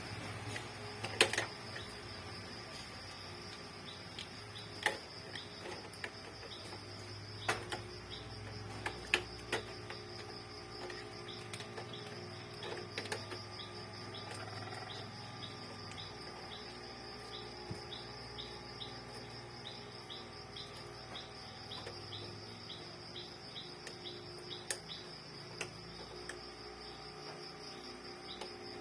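Occasional sharp clicks and taps from small printer parts being handled during disassembly, loudest in the first ten seconds. Behind them run a steady high drone and a regular chirping, about two or three chirps a second, typical of insects.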